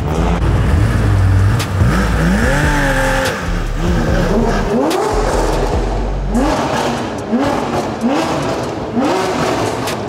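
Car engine revved over and over in short rising blips, about one a second, over a deep rumble.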